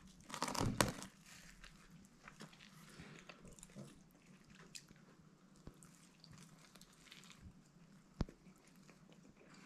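A slice of pizza being lifted out of a cardboard box with a brief rustle, then a person quietly biting and chewing it, with small wet mouth clicks and one sharp click about eight seconds in.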